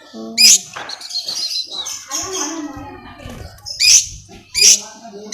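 Long-tailed shrike (cendet) singing: high chirping notes broken by short harsh, scratchy calls, one early and a cluster of three near the end.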